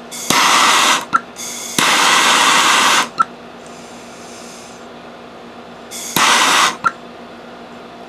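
Trigger-start MAP-gas hand torch firing in three short hissing bursts, each starting with a sharp tick and followed by a short click, as a joint is heated for soldering.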